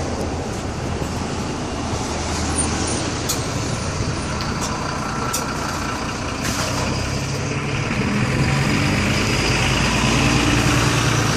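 Interior noise of a Mercedes-Benz Conecto II city bus in motion, its diesel engine running under the hum of the ride, with a few light ticks early on. About two-thirds of the way in, the engine hum comes up and grows louder.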